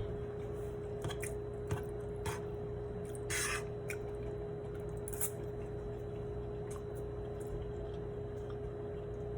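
Quiet eating sounds while tasting cooked rice: a few light clicks and wet mouth sounds, mostly in the first half, over a steady hum.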